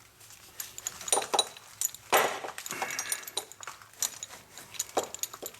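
Irregular light metallic clinks, rattles and scrapes of a parking brake cable and its protective loom being handled and worked into place by hand, the loudest scrape about two seconds in.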